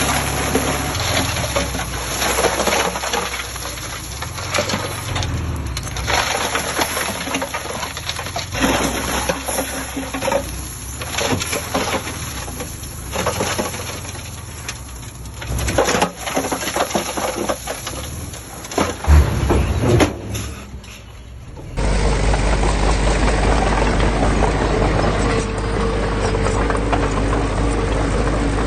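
Heavy construction machinery at work: an uneven mechanical rumble and clatter. After an abrupt cut about three-quarters of the way through, an engine runs steadily.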